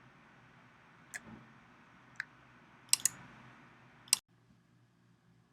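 Computer mouse clicking: five short sharp clicks, two in quick succession about three seconds in, over a faint steady hiss that cuts off suddenly just after four seconds.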